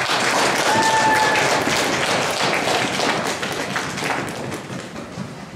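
Small audience applauding, loud at first and thinning out toward the end.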